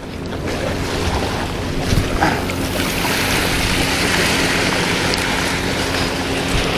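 Wind rushing over the microphone with water washing, over a steady low motor hum; the wind noise grows stronger a couple of seconds in.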